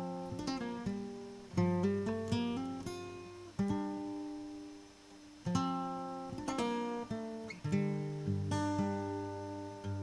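Acoustic guitar background music: chords and plucked notes struck every second or two, each left to ring and fade away.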